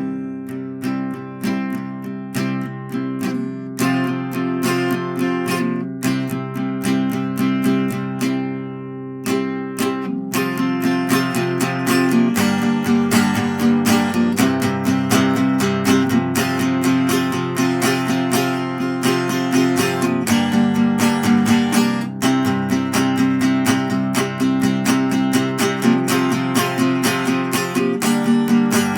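Acoustic guitar being strummed with no singing, as an instrumental outro. The strumming is lighter for about the first ten seconds, then grows fuller and louder.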